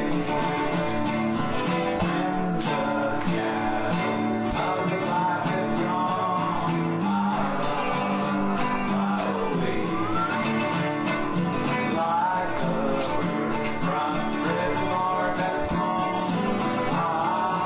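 Country-style gospel music played on acoustic guitar, in a bluegrass manner.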